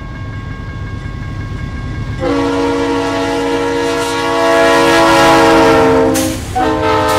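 A diesel freight locomotive's multi-chime air horn sounds a long blast over the rumble of the locomotive, the chord sliding slightly lower in pitch. After a brief break a second, shorter blast begins.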